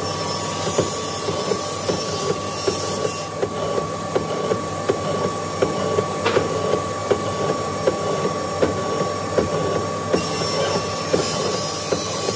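Mortising machine running, its bit cutting a long groove in a wooden beam: a steady motor whine with sharp knocks about twice a second as the cutter works through the wood. A hiss joins in at the start and again for a few seconds near the end.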